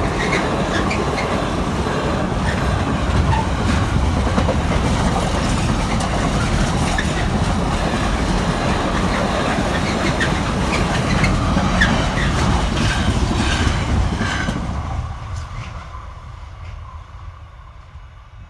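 Wheels of a Freightliner container train's wagons clattering over the rail joints as the train passes close by at a fair speed: a steady rush with regular clicks. About fifteen seconds in, the last wagon goes by and the sound fades away.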